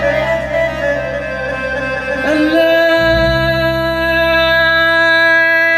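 Arabic folk song: a man's melismatic singing line with a steady low drone underneath, giving way about two and a half seconds in to a long held note.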